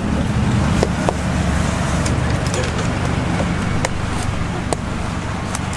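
A steady low engine hum, with scattered sharp clicks and taps over it.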